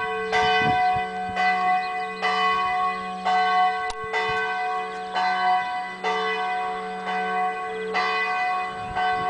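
Church bell ringing, struck about once a second, each stroke ringing on into the next over a steady low hum.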